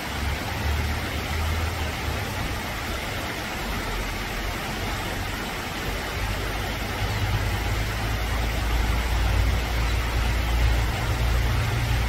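Shallow stream rushing over rocks and small cascades, a steady hiss of water. A low rumble runs underneath and is stronger in the second half.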